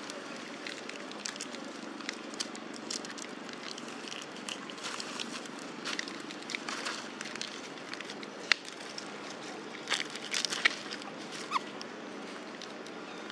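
Macaques shifting about on dry leaf litter and handling a snack packet: light rustling and crackling with scattered sharp clicks, the loudest bunched a little after the middle, over a steady low background hiss. One short high squeak near the end.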